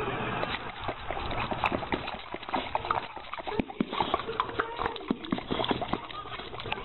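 A dog close to the microphone making a rapid, irregular run of clicks and knocks.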